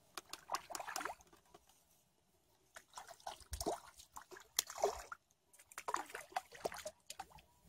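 Small crucian carp splashing at the water's surface and dripping as it is reeled in and landed, in irregular bursts of splashes with short pauses between them.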